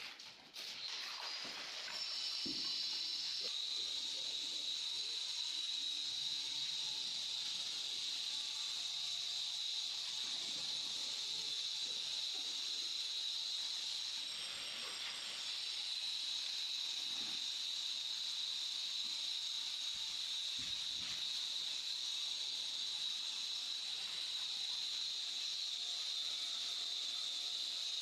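A steady high hiss, with a few faint taps and scrapes of a trowel working mortar under it.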